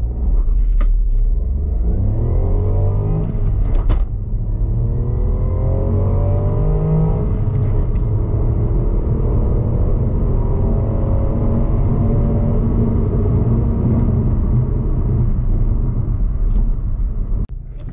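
Ford Puma ST-Line's 1.0-litre EcoBoost three-cylinder turbo petrol engine at full throttle from a standstill, heard from inside the cabin. The revs climb in each gear, break at upshifts about four and eight seconds in, then rise more slowly and hold steady before the throttle is lifted near the end.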